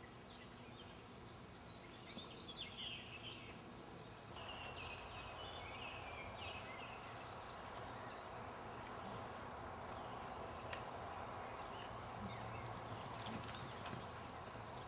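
Blue jay giving a string of harsh, rasping calls over the first several seconds, over a steady outdoor noise; a few sharp clicks near the end.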